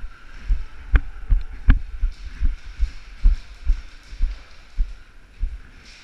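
Footsteps of a walking airsoft player, heard as low thuds through the body-worn camera at about two steps a second. Two steps, about a second and a second and a half in, land as sharper knocks.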